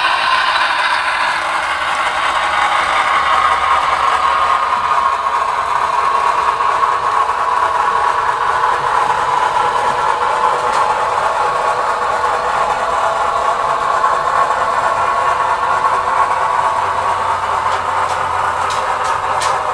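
Model train running steadily along the layout's track: a continuous motor whir with rattle and clatter from wheels and track, and a few light clicks near the end.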